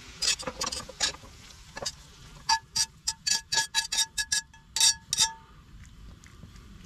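Metal tongs scraping and knocking against cast iron skillets as a stir-fry is pushed from one pan into the other: a few quick clicks in the first second, then about a dozen sharp clinks over nearly three seconds, each with a short metallic ring.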